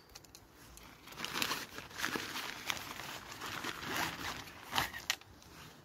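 Rustling and crinkling of the table's black carry bag and wrapping as the rolled-up tabletop is pulled out and handled, with a few sharper crackles in between.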